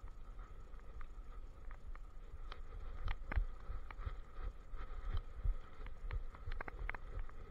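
Handling noise from a camera strapped to a walking German shepherd: a low rumble with irregular taps and knocks as the harness and camera jostle with its steps, over a faint steady tone.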